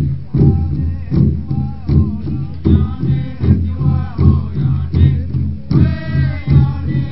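Caddo dance song: a drum struck in a steady beat, a little faster than once a second, under group singing.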